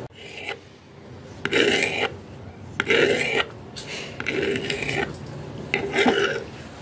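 Kitchen knife slicing through a tomato on a cutting board: four separate cuts, about one every second and a half, each a short rasping stroke with a tap of the blade on the board.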